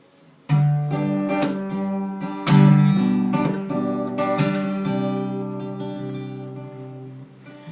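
Acoustic guitar playing a song intro: strummed chords, the loudest about half a second and two and a half seconds in, with lighter notes between, left to ring and slowly fade near the end.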